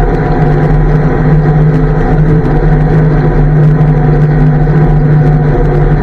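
1959 Daimler Ferret armoured car's Rolls-Royce B60 straight-six petrol engine running steadily as the vehicle drives along, heard from on board.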